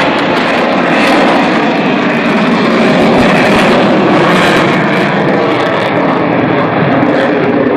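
Aircraft engine noise from a plane flying past, loud and steady, growing duller toward the end as it moves away.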